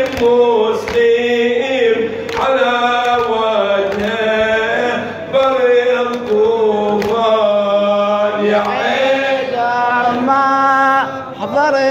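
Male voice chanting an Arabic nawha, a Shia mourning lament. It holds long notes that bend and waver in pitch.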